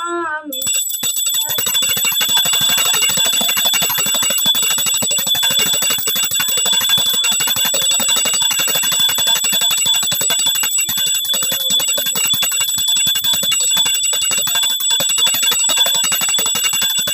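Small brass puja hand bell (ghanti) rung rapidly and without a break during an aarti: a continuous ringing with several clear high tones. It starts about half a second in, just as a sung line breaks off.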